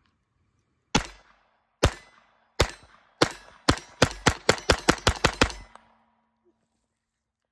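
Taurus TX22 Compact .22 LR semi-automatic pistol firing about a dozen shots. The first three or four come nearly a second apart, then a rapid string at about five shots a second ends around five and a half seconds in.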